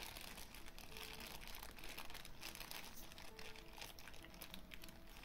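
Quiet room tone with faint rustling and crinkling, light handling noise.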